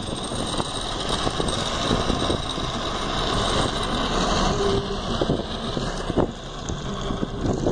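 Steady engine and road noise of a car driving, heard from the car itself.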